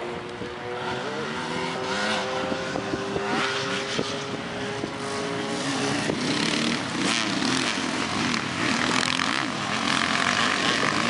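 Enduro dirt-bike engines revving up and down as the bikes ride the course, several engines at once, one holding a steady note early on while others rise and fall; the sound grows louder near the end.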